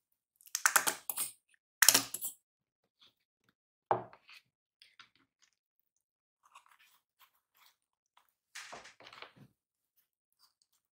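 Handling sounds of a filled flatbread wrap: two short crackly bursts early on, a single knock about four seconds in, then faint crinkling and a soft rustle and crunch near the end as the wrap of chicken and shredded vegetables is folded and rolled by hand.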